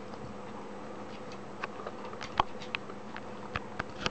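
Irregular light clicks and taps, sparse at first and then several a second from about halfway through, over a faint steady hum.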